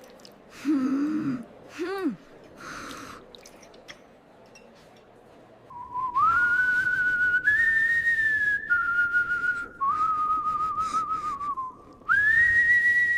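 Someone whistling a slow tune of a few long held notes, starting about six seconds in, with one wavering note partway through. Before it there are two short low pitched sounds.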